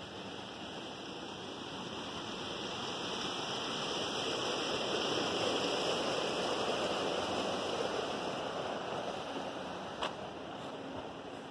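Small stream running over rocks, a steady rush that swells to its loudest about halfway through and then fades. A single sharp click comes near the end.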